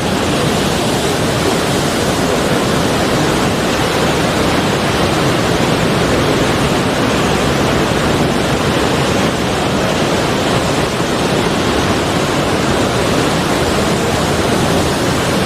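Sea surf: a steady, unbroken wash of wave noise, with no separate breakers standing out.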